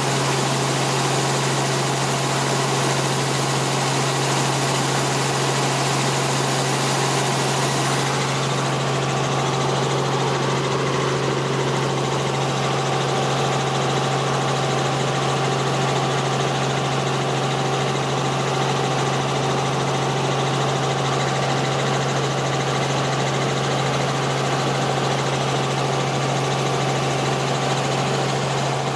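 Helicopter in steady flight heard from inside the cabin: a constant engine and rotor drone with a strong low hum. The top end grows duller about eight seconds in.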